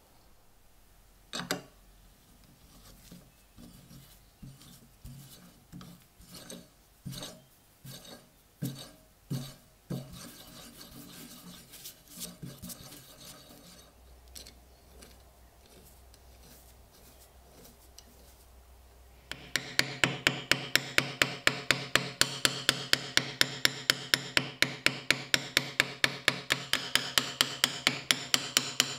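Ball-peen hammer tapping rapidly and evenly on the steel stud of an axe handle's pommel cap, about four taps a second, metal on metal, peening the stud over to fix the cap. Before the tapping starts, a dozen or so softer, irregular knocks.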